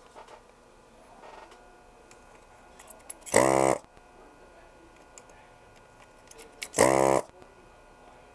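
Electric desoldering gun's vacuum pump buzzing in two short bursts of about half a second, some three and a half seconds apart, as it sucks solder from the pins of a seven-segment LED display to free it from the board.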